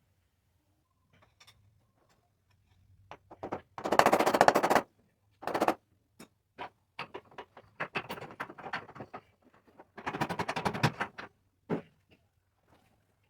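Impact wrench hammering in rapid bursts of about a second each, the loudest about four seconds in and again near ten seconds, with scattered clicks and knocks between them.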